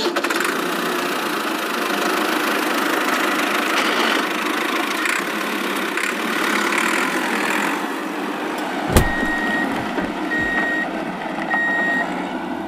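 Sound effect of a heavy vehicle's engine running with a steady noisy rumble. About nine seconds in comes a sharp thump, then a reversing alarm beeps at about one beep a second.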